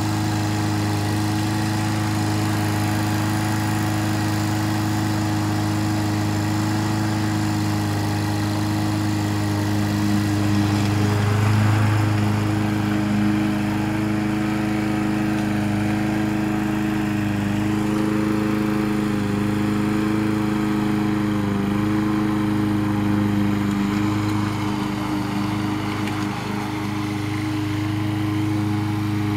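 Remote-controlled lawn mower's engine running steadily at a constant speed, its pitch wavering slightly a few times as it works.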